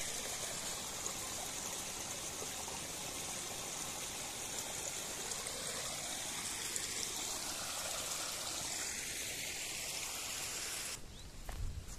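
Small mountain stream running and splashing over rocks: a steady rush of water. Near the end the water sound drops away suddenly, leaving a few soft thumps.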